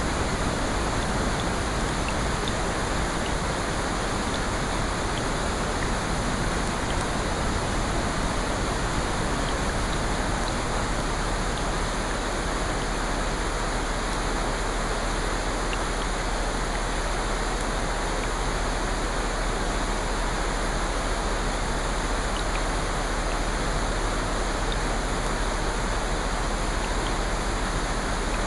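Steady rain, an even hiss with a few faint scattered ticks.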